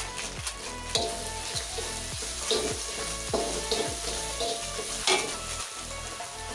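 Spice paste sizzling in hot oil in a metal wok, with a metal spatula scraping and stirring it in several strokes.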